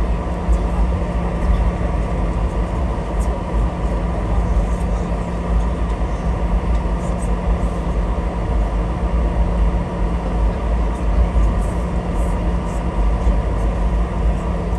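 Cabin noise inside a Boeing 717 on the ground after landing: its rear-mounted Rolls-Royce BR715 engines running at low power, giving a steady low rumble with a constant hum over it.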